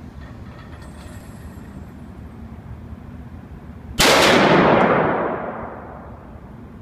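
A single shot from an AR-15 pistol about four seconds in: a sharp crack followed by a long echoing tail that fades over about a second and a half in the concrete indoor range.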